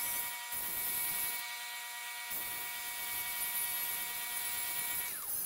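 Metal lathe running with a steady whine of several tones while a center drill is fed into the end of a spinning stainless steel workpiece to start a pilot hole. The whine drops away about five seconds in.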